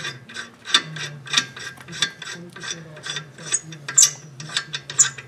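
Ratchet wrench clicking in quick, irregular strokes while working a lug nut at the rear wheel hub, over a low steady hum.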